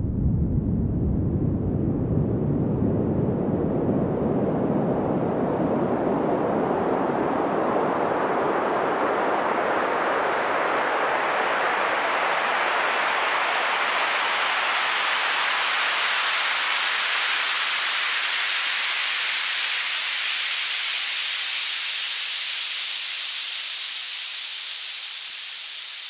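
Audio test signal: a band of noise rising steadily in pitch from deep bass to the highest treble, at an even loudness in both the left and right channels. It is used to check stereo width: the sound should stay distinct at the left and right speakers and the width should not change.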